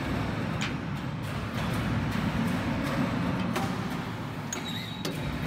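Roll forming machine running: a low, steady mechanical rumble with a few faint clicks.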